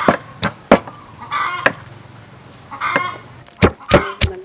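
Wooden pestle pounding chili and garlic in a mortar: sharp thuds, a few in the first two seconds, then a quicker run near the end after a pause. Chickens call twice in the background during the pause.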